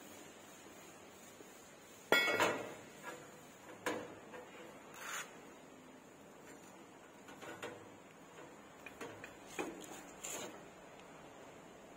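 A series of separate metallic clanks and clinks, the loudest a ringing clank about two seconds in, followed by lighter knocks and clinks of metal parts being handled.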